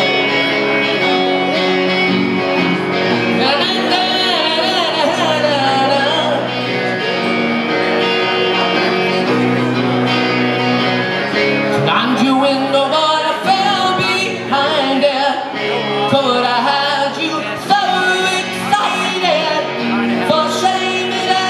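Live rock music: a band playing with guitar, and a male voice singing, strongest in the second half.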